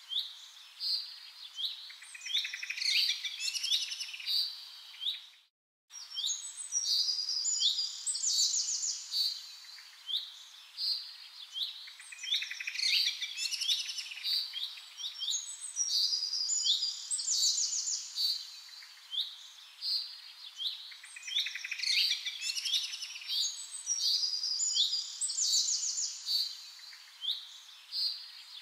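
Birdsong: many small birds chirping and trilling high-pitched, with a short complete drop-out about six seconds in.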